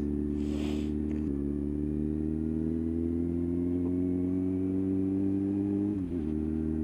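Motorcycle engine running steadily under way, heard through a microphone inside the rider's helmet; its pitch creeps slowly upward, dips briefly about six seconds in, then holds steady.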